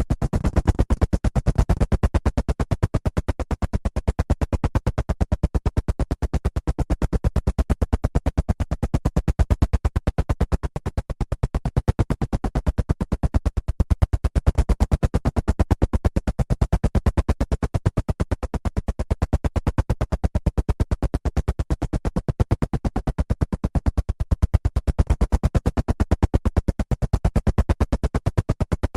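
Helicopter in flight, its rotor blades beating in a rapid, even chop over a steady engine noise.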